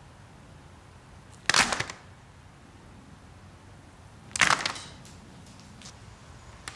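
Two short, sharp noisy hits about three seconds apart, each dying away in under half a second.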